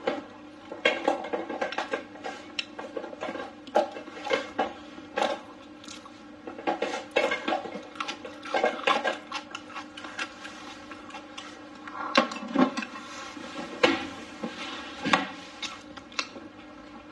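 Close-up chewing and mouth sounds of someone eating braised chicken wings and blistered tiger-skin peppers: irregular wet smacks and clicks several times a second, with a faint steady hum underneath.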